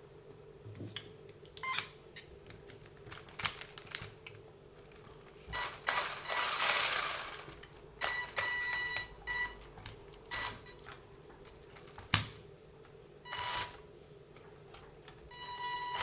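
Clicks and clatter of small plastic and metal RC-car parts being handled, with a loud hiss partway through and two short whines of a small electric motor, one at about the middle and one near the end.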